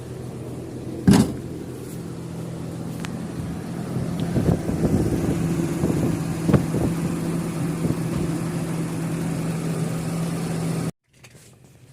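Toyota Revo's 7K four-cylinder engine running at an idle that is too high, around 2,000 rpm, with a loud knock about a second in. It runs louder and rougher from about four seconds in, then cuts off suddenly near the end.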